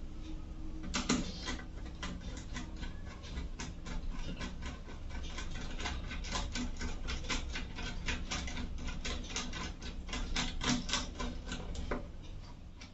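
Screwdriver working a terminal screw on a miniature circuit breaker: a fast, uneven run of small clicks and scrapes, several a second, over a steady low hum.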